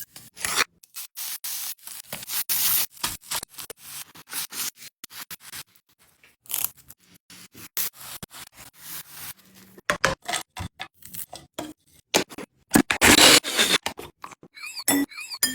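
Food-preparation sounds: quick scrapes and clicks of utensils and ingredients being cut and handled, in short stop-start bursts.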